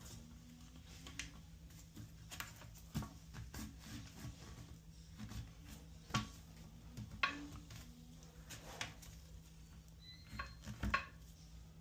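Scattered light clicks and knocks of hard plastic and metal parts being handled while an adjustable toilet seat's hinges are fitted and tightened.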